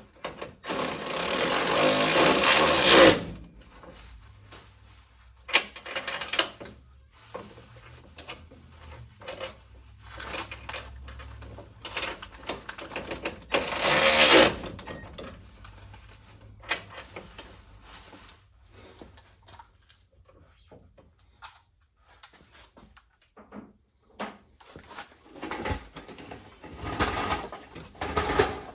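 Stubby wrench tightening the bolts of a Mustang hood latch assembly: two longer stretches of wrenching noise, one near the start lasting a couple of seconds and a shorter one about halfway, with scattered clinks and knocks of tool and hardware between.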